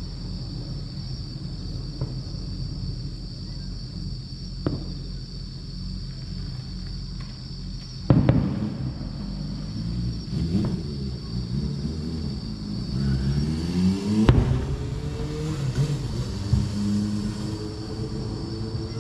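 Fireworks bursting at a distance: scattered booms, the loudest about eight and fourteen seconds in, over a steady low rumble. In the second half a motor vehicle's engine is heard accelerating, its pitch rising in steps.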